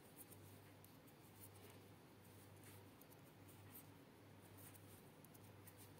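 Faint, irregular clicking and scratching of knitting needles working wool yarn, over a low hum.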